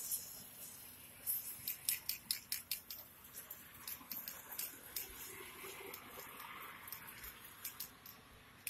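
Aerosol spray paint can: a quick run of short, sharp, high-pitched spurts, about five a second for a couple of seconds, then scattered ones, as paint is spattered onto a stencilled board.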